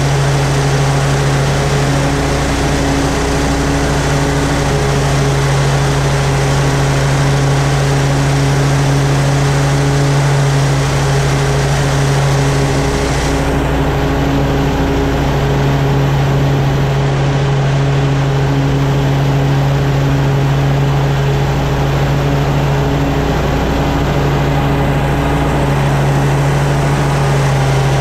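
Toro Z-Master 4000 zero-turn mower's engine running at a steady speed with the blades cutting grass, a constant drone with a whirring hiss over it.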